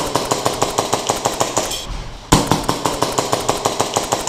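Airsoft pistol firing fast, about eight shots a second, in two long strings with a brief pause about two seconds in.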